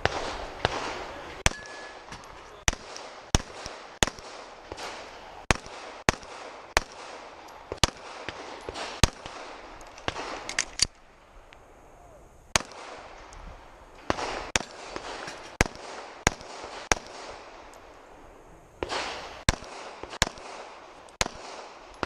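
Pistol shots from a Glock fired in a long string of single shots, often about half a second apart. There are two short pauses of a second or so before firing resumes.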